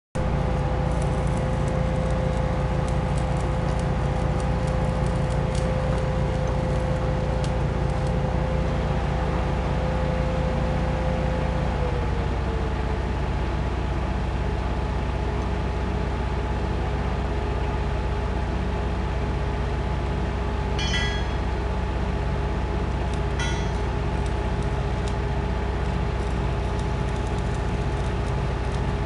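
A large machine running steadily, with a deep hum and a steady whine that drops slightly in pitch about twelve seconds in. Two brief clicks come near the end.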